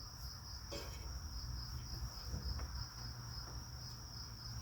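Insects chirring steadily in one high, even tone, over a low rumble, with a faint click about a second in.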